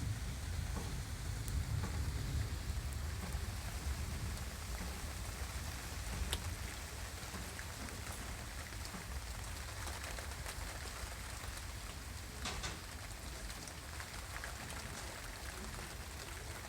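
Steady heavy rain falling during a thunderstorm, with a few sharp drip taps now and then and a low rumble underneath that slowly eases off.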